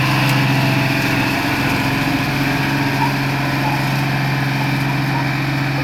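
Box truck's engine running steadily as the truck drives slowly across the grass, a low even hum that dips briefly about a second and a half in.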